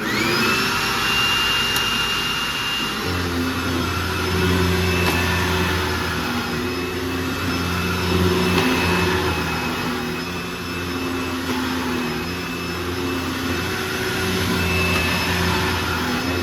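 Hoover WindTunnel Anniversary upright vacuum, its motor freshly rebuilt with new bearings, switched on and spooling up with a rising whine, then running steadily. About three seconds in, a lower hum joins the motor and stays, loud throughout.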